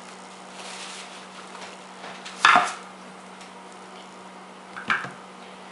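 Small metal parts and tools handled on a workbench: a soft wiping rustle, then one loud clatter about halfway through and a lighter click near the end.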